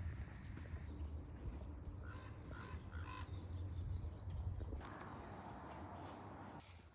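Birds calling outdoors: a quick run of short repeated calls about two seconds in, and a single high call near the end, over a steady low rumble.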